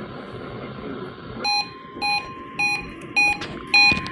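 Weather radio receiver beeping its alert, short beeps repeating about twice a second, starting about a second and a half in over radio static hiss. The beeping marks the receiver being triggered by the weekly test broadcast.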